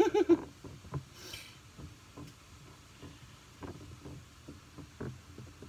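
Faint scattered taps and soft rubbing of hands pressing a rolled-out pie crust into a ceramic deep-dish pie pan.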